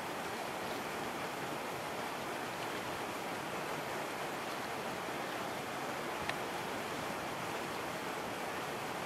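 Steady rushing wind noise with no change in level, and one faint click about six seconds in.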